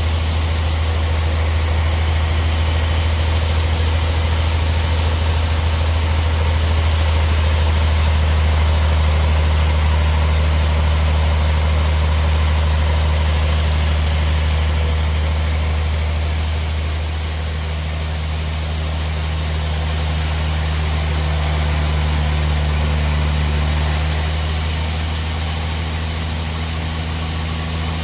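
Log bandsaw sawmill machinery running: a loud, steady low drone with a hiss above it. The drone's tone shifts and its level dips slightly about two-thirds of the way through and again near the end.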